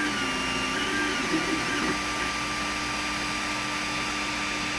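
Creality Ender 5 Plus 3D printer running a print: its cooling fans give a steady whir, and its stepper motors whine at changing pitches as the print head moves for the first two seconds or so, then settle into one steady hum.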